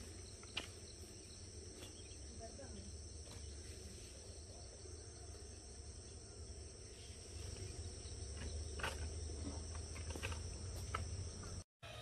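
Insects chirring steadily in thin, high, unbroken tones over a low steady rumble, with a few faint clicks. The sound cuts out briefly near the end.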